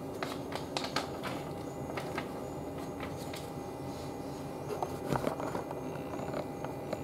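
Inside a standing electric train: the steady hum of its onboard equipment, with scattered light clicks and ticks, a few bunched together near the start and again about five seconds in.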